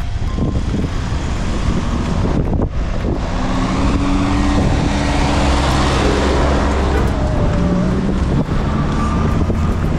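Street traffic passing close by: car and truck engines running with tyre noise, growing loudest as vehicles pass in the middle.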